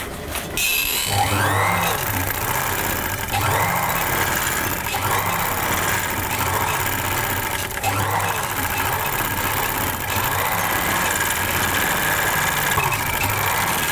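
Overlock sewing machine (serger) starting up about a second in, then running at speed as it stitches the edge of layered cotton fabric, its speed rising and dipping a little.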